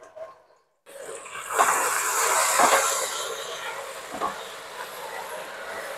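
Oyster sauce sizzling in hot oil with frying garlic and shallots in a nonstick wok, stirred with a silicone spatula. The sizzle starts abruptly about a second in, is loudest soon after, then settles to a softer hiss.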